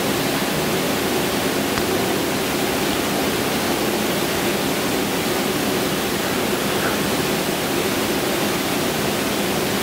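Steady, even hiss of audio equipment noise with a faint low hum underneath: the poor recording sound of a new setup.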